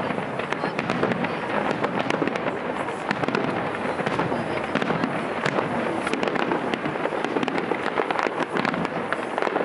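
Fireworks display: many shells bursting at once, a dense, continuous crackling and popping with no single big bang standing out.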